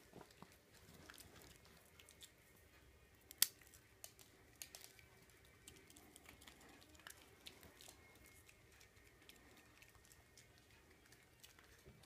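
Near silence: faint scattered clicks and rustles, with one sharper click about three and a half seconds in.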